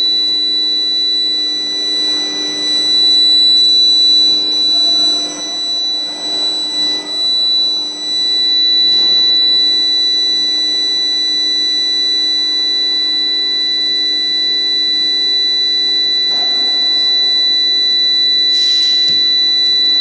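Medium-frequency induction heating furnace running under load while heating steel bars: a loud, steady high-pitched whine with fainter related tones above and below it and a lower steady hum beneath, with brief rushes of noise now and then.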